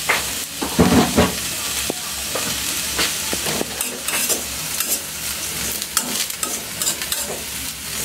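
Food sizzling as it fries in a steel kadhai with a little oil, while a metal spatula stirs and scrapes against the pan over green chickpeas and then flattened rice, with a louder scrape about a second in.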